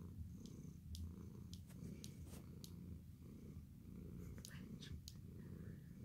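Elderly tabby cat purring steadily in a low rumble that swells about once a second, with scattered faint clicks over it.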